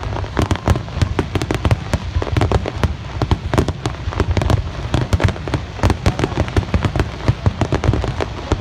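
Fireworks going off in a rapid, dense barrage of many sharp bangs and crackles over a low rumble, as in a festival finale.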